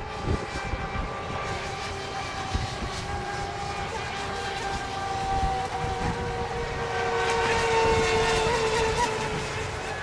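Several nitro-powered RC racing boats running on the water: a high-pitched engine whine of overlapping tones that drift slowly in pitch, louder as the boats come closer near the end.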